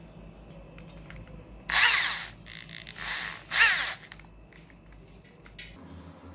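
Handheld electric drill spinning up in three short bursts, its motor whine rising in pitch with each trigger pull; the second burst is quieter than the other two.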